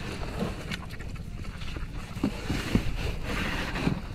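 Wet cast net and mullet being handled as the fish are taken out of the net: rustling with several short, soft knocks.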